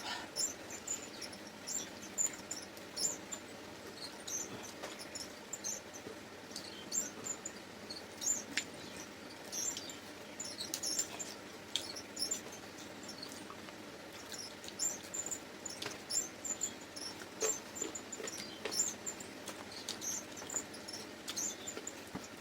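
Chewing and lip-smacking of people eating luchi with chicken curry: frequent small, irregular wet clicks and smacks.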